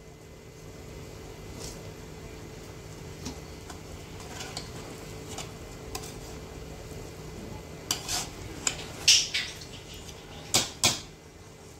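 A spoon stirring chicken into rice in a biryani pot: soft scraping and tapping, then several louder clinks of the spoon against the pot in the last few seconds.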